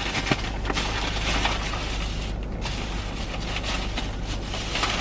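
Rummaging: dense rustling and crackling with many small clicks as things are handled and moved about, over a steady low hum inside a car cabin.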